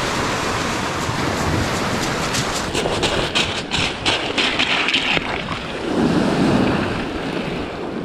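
Lake waves washing onto a pebble shore, with wind on the microphone; from about two and a half to five seconds in, a quick run of crunching on the pebbles.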